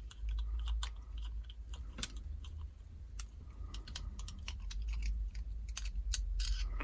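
Irregular small clicks and scrapes of a tool working the small screw at the bottom of the shackle hole of a Yale 850 bronze padlock, over a faint low hum.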